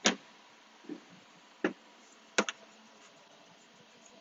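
A few sharp clicks and knocks from a Range Rover Sport's door latch and handle as the doors are worked: the loudest right at the start, another about a second and a half in, and a quick double click about two and a half seconds in.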